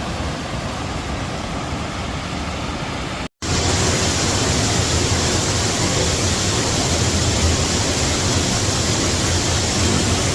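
Steady rushing noise of falling water. It is cut off about three seconds in, then comes back louder with a deeper rumble.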